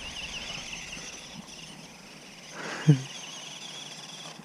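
Faint whine of a small battery-powered RC car's electric motor, its pitch wavering as the car drives and turns on grass, with one short bark-like sound about three seconds in.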